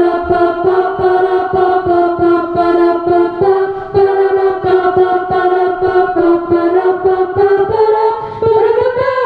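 A small a cappella group of women's voices singing close-harmony chords, with short rhythmic attacks about four times a second. Near the end the voices swoop upward together, then drop off sharply.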